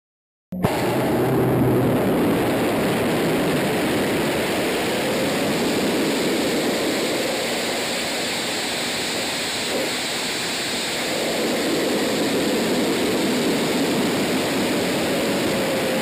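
Rocket sled run on a high-speed test track: a steady, loud roar of the firing rocket motors and rushing air, starting abruptly about half a second in.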